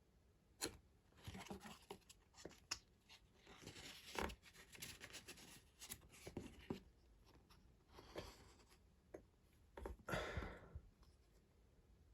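Faint handling noises: scattered light clicks and brief soft rustling, as of the set's plastic pieces and paper booklet being handled.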